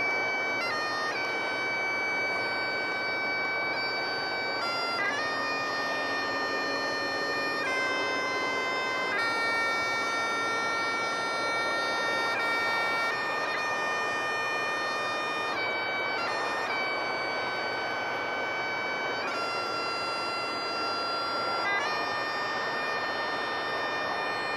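Highland bagpipes playing a slow tune: long held notes changing every one to four seconds over the pipes' steady drones.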